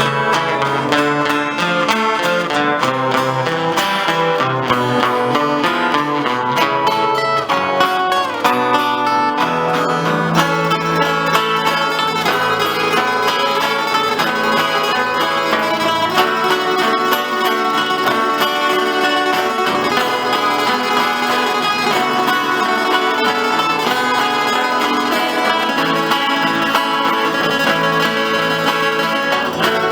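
Regional folk music played on plucked string instruments, guitar-like, running at an even level.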